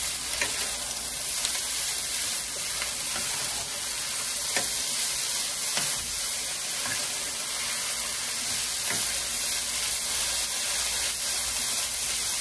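Cubed ham and roasted chicken frying in melted butter in a pan, a steady sizzle, with a few light clicks from a utensil stirring against the pan.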